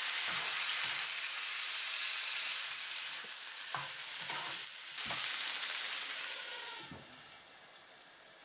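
Chicken drumsticks sizzling in a hot frying pan with ginger and soy sauce while they are stirred, with a few knocks of the utensil against the pan. Near the end the sizzle drops to a quieter, muffled bubbling as a glass lid goes on the pan.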